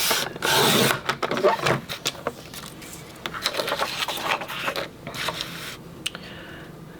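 Card stock being handled and cut on a paper trimmer: a burst of paper rustling at the start, then light clicks and scrapes from the trimmer for several seconds, growing quieter near the end.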